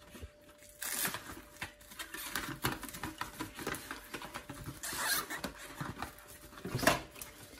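Cling film crinkling and rustling as it is pulled off the roll in its cardboard dispenser box. There are a few louder crackles: about a second in, around five seconds, and near the end.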